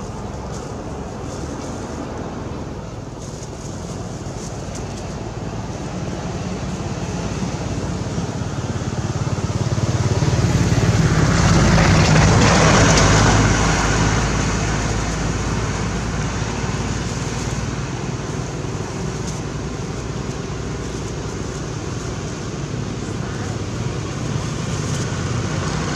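Motor traffic passing: a steady hum of vehicles, with one passing vehicle swelling to a peak about halfway through and then fading.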